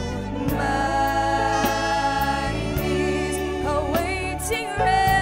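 Gospel song: a woman singing long held notes with vibrato over a steady bass line and light, regular cymbal ticks.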